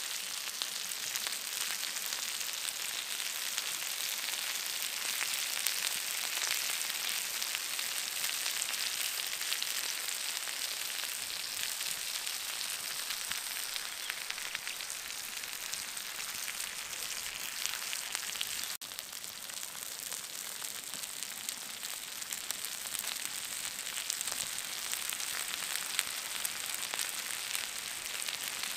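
Lamb ribs, stuffed lamb roll and potato slices sizzling on a hot flat cooking stone: a steady hiss of frying fat and meat juices with fine crackling.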